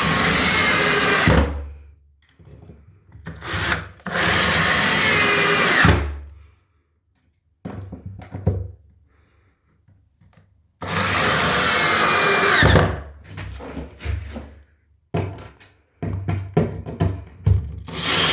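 Cordless drill-driver with a Phillips bit driving 3.8×70 mm self-tapping screws through floorboards into the joists, pulling the boards down to stop the floor squeaking. There are four runs of about two seconds each, the motor whine shifting in pitch under load, each ending in a low thunk as the screw head sinks into the wood. Clicks and knocks sound between the runs.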